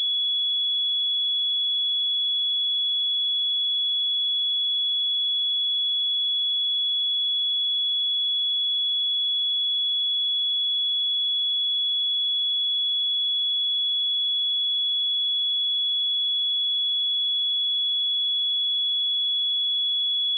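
A steady, unbroken 3382 Hz sine-wave test tone, a single pure high-pitched note at constant level, as used to check speakers and headphones.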